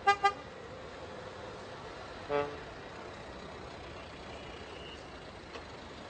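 Vehicle horns honking in slow street traffic: two quick toots in a row, then a single lower-pitched toot about two seconds later, over steady traffic noise.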